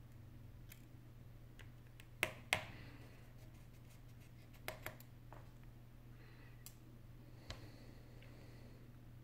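A few small, sharp clicks of a precision screwdriver working the tiny screws inside an opened iPhone 8 Plus: a close pair about two seconds in, another pair near the middle, and one more later, over a low steady hum.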